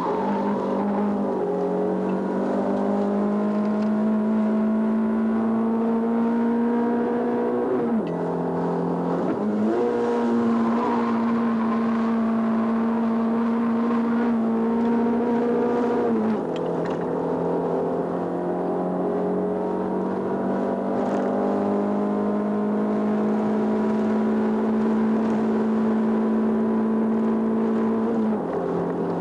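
Hillclimb race car's engine heard from inside the cockpit, pulling hard at high revs with the pitch held high and creeping upward. The pitch drops suddenly three times, around eight, sixteen and twenty-eight seconds in, between long sustained pulls.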